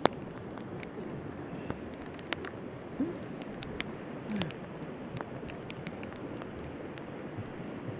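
Mountain bike riding over a rough trail: steady rushing noise with scattered, irregular sharp clicks and ticks.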